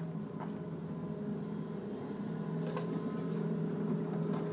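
Hitachi 210 excavator's diesel engine running steadily while the machine works, with a couple of light metallic knocks as the bucket swings.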